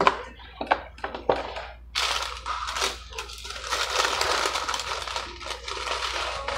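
A paper fast-food bag being opened and handled, rustling and crinkling for several seconds, after a few sharp clicks and knocks in the first second or so.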